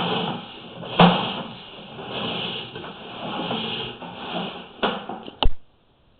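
Sewer inspection camera's push cable being pulled back through the line, rubbing and scraping, with sharp knocks about a second in and twice near the end. The sound then cuts off suddenly.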